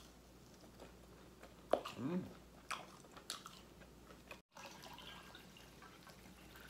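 Close-up eating: one sharp bite into an air-fryer-reheated onion ring about two seconds in, followed by a short hum and a few soft chewing clicks. The ring is not that crunchy.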